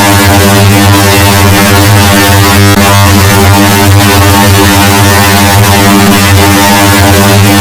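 A train horn sound effect layered on itself countless times into one very loud, steady drone: a chord of many held tones with a harsh hiss over them.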